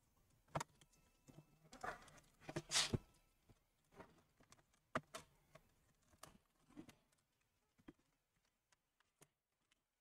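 Plastic pry tool working along the seam of a laptop's plastic bottom cover, giving scattered faint clicks and snaps as the cover's clips are levered loose; the sharpest come about half a second, three seconds and five seconds in.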